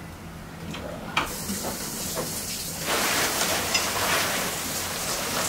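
Rustling and crinkling of a large white diffusion cloth on a film light as it is grabbed and handled, with a few sharp clicks. It starts about a second in and gets louder about three seconds in.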